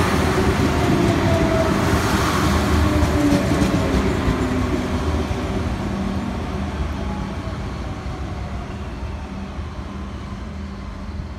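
Adelaide 3000-class diesel railcar passing close by and pulling away. Engine and wheel noise is loud for the first few seconds, with a few falling tones, then fades steadily as it draws off.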